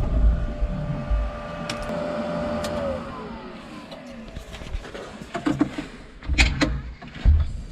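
Zettelmayer wheel loader's diesel engine running with a steady whine, then switched off about three seconds in, the whine falling away as it spins down. Several clunks and knocks follow in the cab.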